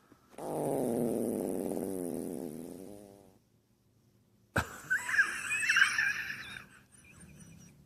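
A long fart lasting about three seconds, pitched and wavering up and down. After a sudden break it is followed by about two seconds of higher, squeaky sliding sounds.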